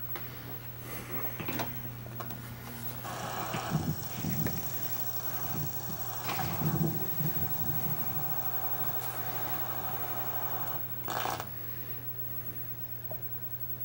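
Steady low electrical hum. From about three seconds in, an old videotape's soundtrack plays through the television: an even hiss with irregular muffled low thumps, ending with a short burst shortly before the end.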